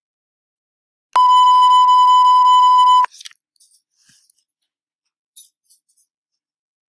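Electronic interval-timer beep: one loud, steady tone of about 1 kHz that lasts about two seconds and cuts off suddenly, marking the end of a 10-second interval. A few faint clicks follow.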